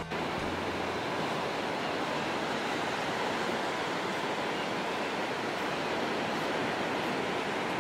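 Ocean surf washing steadily onto a sandy beach.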